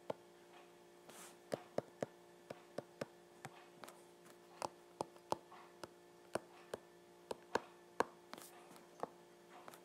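Stylus tapping and clicking on a tablet screen during handwriting: irregular sharp ticks, about two a second, over a steady faint electrical hum.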